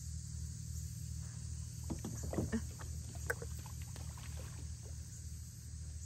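A small hooked catfish splashing at the water's surface beside a fishing kayak as it is reeled up and lifted out, a cluster of short splashes and knocks between about two and four seconds in, over a steady low hum.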